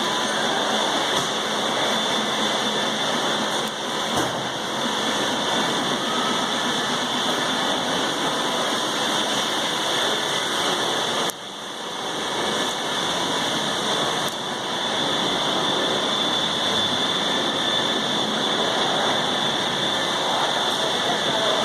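Datsun on-DO gearbox rattling with the engine running: a dense mechanical rattle from the clutch driven disc, which the owner puts down to play of the splined hub in the disc's damper springs. The rattle drops off suddenly about eleven seconds in and builds back up over the next second or two.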